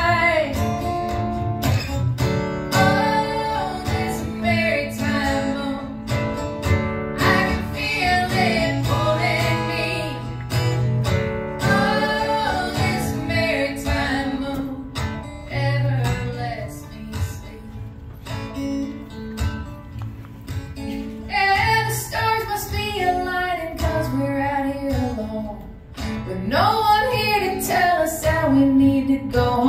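A woman singing over her own strummed acoustic guitar in a live performance.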